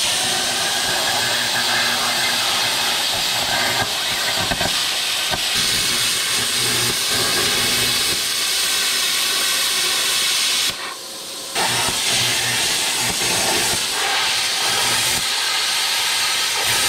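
Plasma cutter cutting through a rusty steel exhaust pipe tip: a loud steady hiss of air and arc that stops briefly about eleven seconds in, then starts again.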